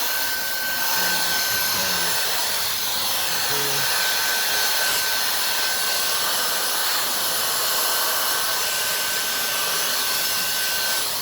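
Handheld cordless 2-in-1 air duster and vacuum running steadily: a rush of air from its high-speed motor with a steady high whine over it.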